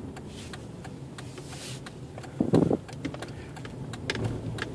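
Dodge car heard from inside the cabin while it makes a slow turn, its engine running with a steady low hum. A brief loud sound comes about halfway through.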